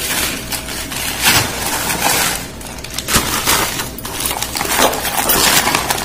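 Thin plastic carry bag crinkling and rustling in irregular bursts as a cabbage is handled and wrapped in it.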